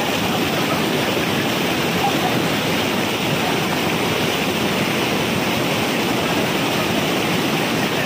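Large waterfall: the steady, even rush of falling water.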